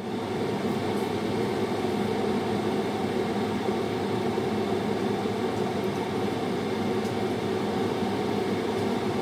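A kitchen fan, most likely the stove's extractor hood, comes on abruptly and runs with a steady whirring hum.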